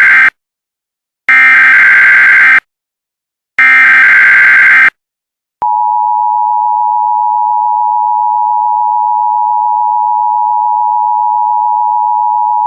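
Emergency Alert System SAME header: the end of one harsh digital data burst and two more, each about a second long with short gaps between. At about five and a half seconds the steady two-tone EAS attention signal (853 and 960 Hz) begins and holds.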